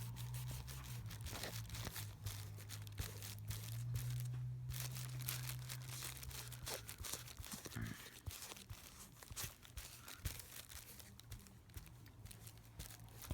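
Cotton swab wet with nail polish remover scrubbed against a sneaker's painted midsole to strip the paint: irregular scratchy rubbing with small handling clicks.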